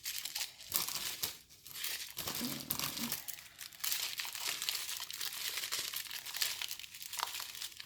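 Small plastic packets of diamond-painting drills crinkling and rustling as they are handled and sorted through.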